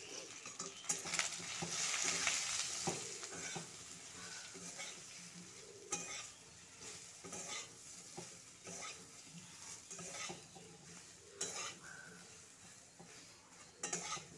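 Cubed brinjal frying in mustard oil in a kadai, sizzling while a spatula stirs and scrapes the pan. The sizzle is loudest in the first few seconds and then eases, with scattered scrapes and knocks of the spatula on the pan.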